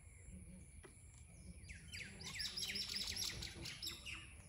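A small bird's quick run of high chirps, about six a second, starting a little before halfway and lasting about two seconds, over a faint steady insect drone.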